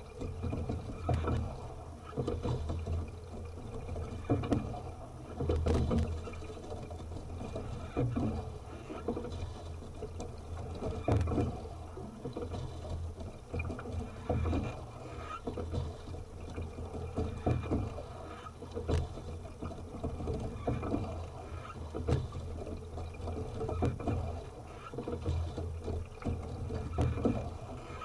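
Sculling oars working in the oarlocks of a single rowing boat, stroke after stroke: a rhythmic surge of blade splash and water against the hull every couple of seconds, with sharp clicks from the oarlocks.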